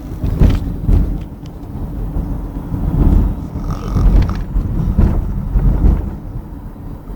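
A man snoring loudly, deep rattling snores rising and falling with his breathing, with a short high tone about halfway through.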